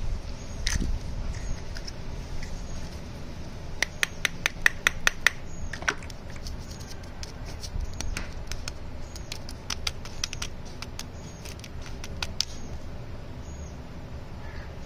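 Fingers handling a small plastic toy and wrapped lollipops: scattered sharp clicks and taps, with a quick run of about seven clicks around four to five seconds in, over a low rumble of handling noise.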